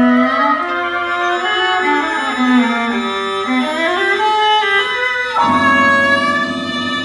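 Recorded contemporary chamber music playing over the theatre speakers: bowed string lines sliding in pitch, then a low sustained chord coming in suddenly about five seconds in.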